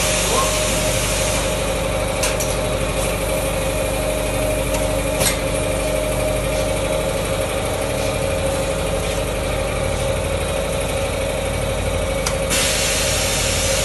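Automatic plastic blow-moulding machine for wash-basin spring hose running: a loud, steady machine drone with a steady whine in it, a few sharp clicks, and a hiss that starts about a second before the end.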